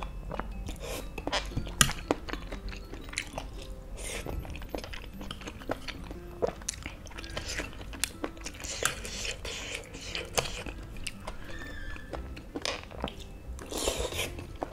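Close-up chewing of a mouthful of spicy seblak with tender boneless chicken feet and noodles, with many short wet clicks from mouth and chopsticks. Near the end comes a brief hissing slurp as a noodle strand is drawn in.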